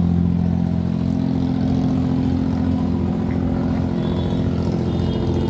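Diesel engine of a wooden abra water taxi running steadily, a low even drone.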